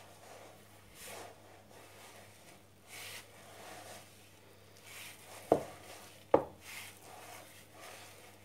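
Hands kneading crumbly şekerpare dough in a bowl: soft rubbing, pressing strokes every second or two. Two sharp knocks, about a second apart, come a little past halfway and are the loudest sounds.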